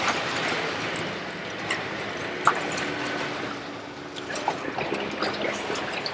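Water splashing and trickling, with scattered small clicks.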